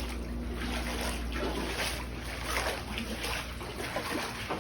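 Steps wading through several inches of floodwater on a house floor, splashing and sloshing irregularly.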